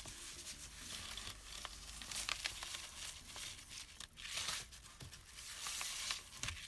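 Paper rustling and sliding on a scoring board as the sheet is handled and repositioned, with a few faint taps.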